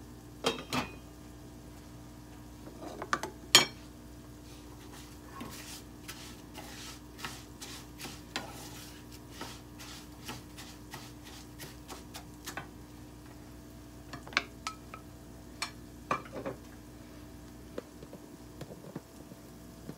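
Cookware clatter: a sharp metal clank with a short ring about three and a half seconds in, as a lid goes onto a saucepan. Then a plastic spoon stirs and scrapes rice browning in oil in a nonstick frying pan, in scattered light clicks and scrapes.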